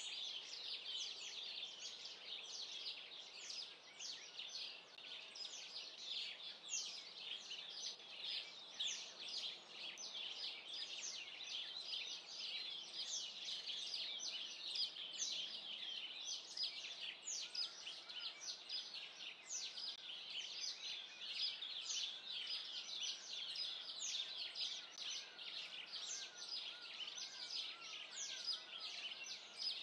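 A dense chorus of many small birds chirping and twittering without a break, joined about two-thirds of the way through by a run of lower, sliding chirps.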